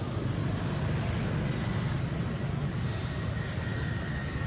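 Steady low rumble of outdoor background noise, like a distant motor, with a faint thin high tone above it that fades out near the end.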